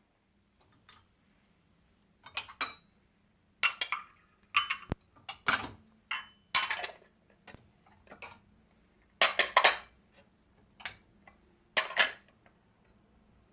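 Irregular clinks and clatters of hard objects being handled and set down, in short clusters with pauses between.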